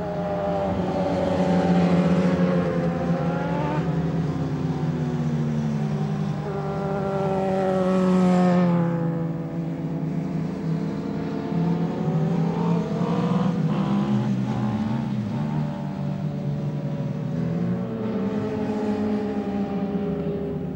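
Racing motorcycle engines revving at high speed, their pitch rising and falling, swelling loudest about two seconds and eight seconds in as they pass.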